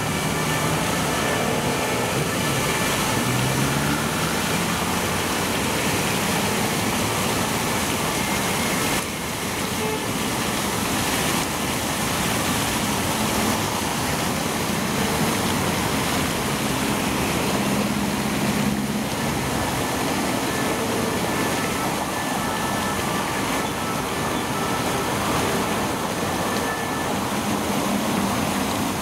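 Water from a large tiered fountain at Place de la Concorde falling and splashing into its basin, a steady rushing hiss, with road traffic running underneath.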